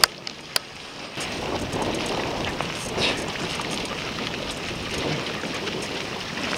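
Water rushing and splashing as a racing kayak and a canoe are paddled past close by, with wind noise on the microphone. Two sharp clicks right at the start.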